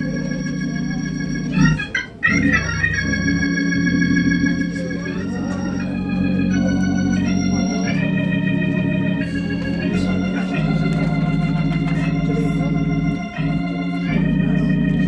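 Hammond-style church organ playing sustained chords over held bass notes, the chords changing every second or two.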